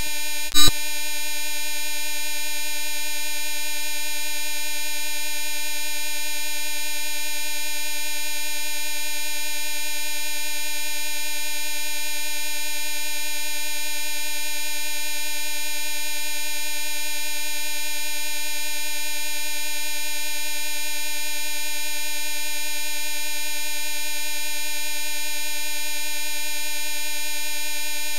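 A steady electronic buzzing tone, held at one pitch with many overtones and never changing, after a short loud burst about half a second in.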